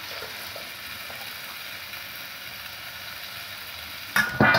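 Food sizzling steadily in a frying pan on a gas stove. About four seconds in, a large stainless-steel tray clatters a few times and rings briefly as it is handled.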